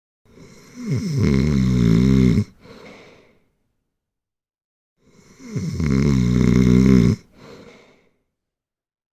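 Snoring: two long snores about five seconds apart, each loud for about two seconds with a wavering pitch, followed by a short, softer breath.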